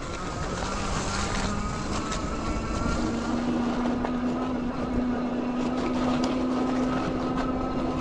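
Aventon Aventure fat-tire e-bike's rear hub motor whining under pedal assist, its pitch stepping up about three seconds in as the bike gathers speed. Under it runs a steady noise of fat tyres rolling over snow and wind on the microphone.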